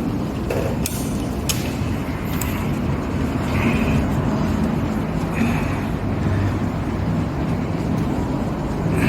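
Steady low background rumble in a workshop, with a few light clicks and taps of metal engine parts being handled and fitted in the first couple of seconds.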